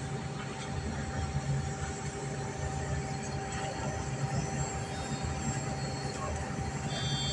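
Cabin noise of a moving bus: a steady low rumble of engine and tyres on the road, with a thin, even hum running through it.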